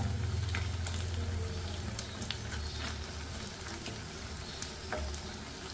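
Jackfruit pakoras deep-frying in hot oil in a kadai: a steady sizzle with scattered crackles, with a low hum underneath, as a wooden spatula stirs and turns them.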